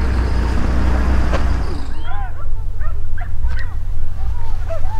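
Pack of boar-hunting hounds yelping: many short, high cries that rise and fall, overlapping and repeating, starting about two seconds in. Before that there is a rushing noise with a low rumble.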